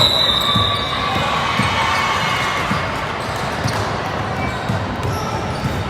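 Basketball being dribbled on a gym floor, a low bounce about once a second over the steady background murmur of a gym.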